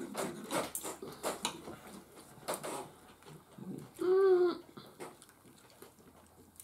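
Knife and fork clicking and scraping on china plates while two people eat, with one short hummed vocal sound, rising then falling in pitch, about four seconds in.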